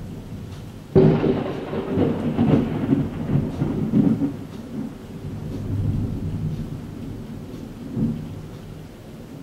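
A thunderclap: a sudden loud crack about a second in, then a long, low rolling rumble that swells again twice and fades away, with rain falling in the background.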